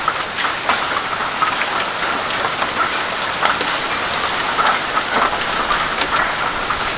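Heavy rain pouring down with marble-sized hailstones striking among it: a dense steady downpour broken by many short, sharp impacts.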